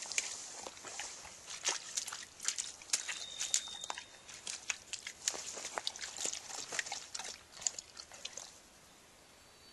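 Shallow river water splashing and trickling in many irregular quick splashes, dying away near the end.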